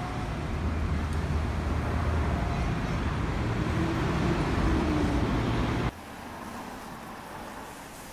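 Street traffic: a steady rumble of passing vehicles' engines and tyres, with faint short tones over it. It cuts off abruptly about six seconds in to much quieter indoor room tone.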